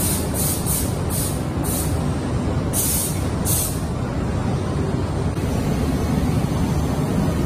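Knitting mill floor noise: circular knitting machines running with a steady mechanical din. Short high hisses come and go in the first half.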